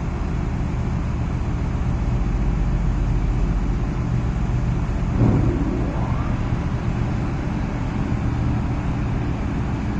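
Tugboat's diesel engines running steadily with a low drone. About five seconds in, a brief louder sound sweeps upward in pitch over the drone.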